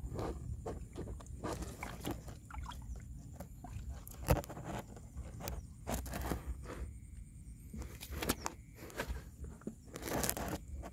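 Bare hands digging into and breaking up clods of mud, with irregular crunching and scraping. There is a sharp knock about four seconds in, and a busier patch of crunching near the end.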